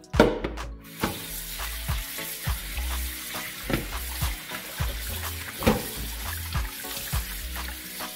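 Kitchen tap running into a pot in a stainless sink, water splashing as hands rinse the food inside, over background music with a steady beat.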